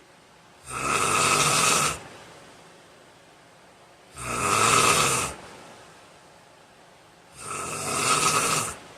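A man snoring loudly in a steady rhythm: three snores, each a little over a second long, about three seconds apart, with quiet between.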